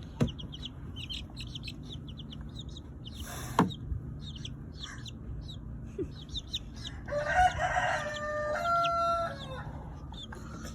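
Chicks peeping in quick, high, repeated chirps, with a chicken's drawn-out crow about seven seconds in. Two sharp knocks, about a second apart from nothing else, stand out near the start and just before four seconds in.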